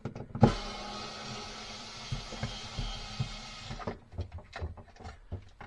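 Cordless drill-driver running steadily for about three and a half seconds, backing out the last screw of a light fixture, then stopping. A few light clicks and knocks follow.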